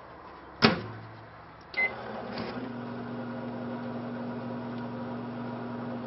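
Microwave oven door latching shut with a sharp click, a short keypad beep about a second later, then the oven starting up and running with a steady low hum.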